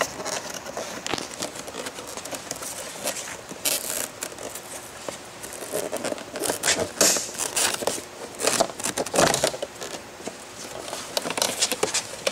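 Plastic center tail fairing of a Kawasaki Ninja ZX6R being pried and worked free of its slide tabs by hand: irregular plastic clicks and scraping, loudest a little past halfway.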